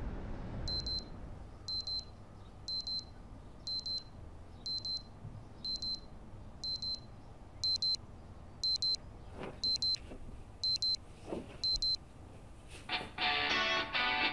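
Electronic alarm clock beeping in short bursts of rapid high beeps, about once a second, growing louder about halfway through and stopping shortly before the end. Guitar music starts loudly just after the beeping stops.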